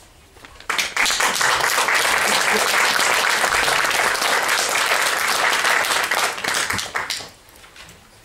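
Audience applause: clapping starts suddenly about a second in, holds steady, and dies away shortly before the end.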